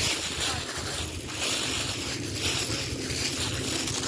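Wind buffeting the phone's microphone: a steady rushing hiss with uneven low rumbling gusts.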